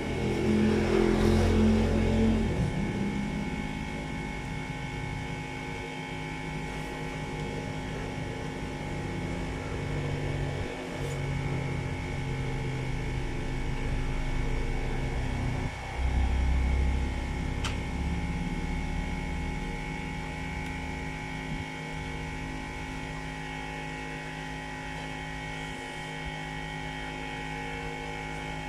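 Steady electrical hum made of several fixed tones. Louder low rumbles come in about a second in and again about sixteen seconds in.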